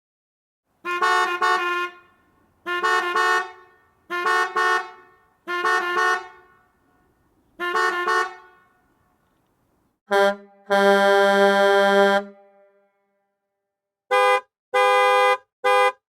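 Horn sound effect honking repeatedly. It starts with five honks of two or three quick pulses each, then gives a longer pulsing honk about ten seconds in, followed by a few short blasts.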